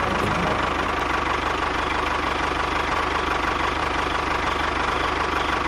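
A small motor running steadily, with a fast, even low pulsing and a constant whine.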